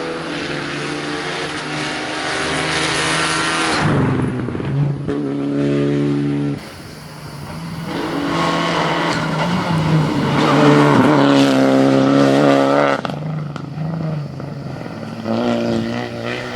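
Rally car engine revving hard, its pitch rising and falling through the gears as the car passes. About six and a half seconds in the sound cuts abruptly to another pass of the car accelerating.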